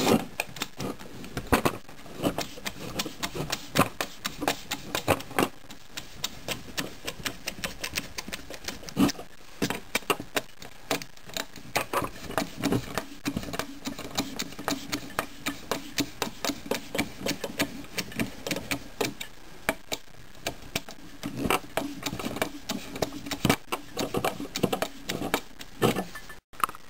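Metal hand tool clicking, rattling and scraping against the water heater's end-cap screws and brass terminal nuts as it is worked loose, several irregular clicks a second.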